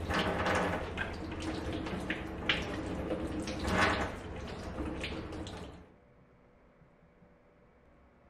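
Kitchen tap running into the sink, with splashing and small knocks, shut off about six seconds in, leaving only faint room tone.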